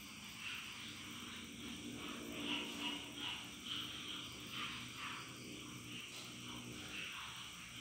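Faint background of short animal calls repeating about twice a second, over a low steady hum.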